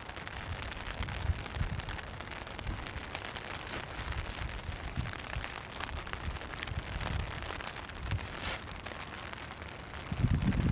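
Freezing rain falling steadily, a dense patter of fine drops, with a low uneven rumble underneath that gets louder near the end.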